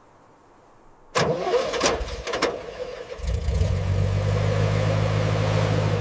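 BMW 7 Series engine being started: the starter cranks with a sudden burst about a second in, the engine catches around three seconds in, then it settles into a steady idle.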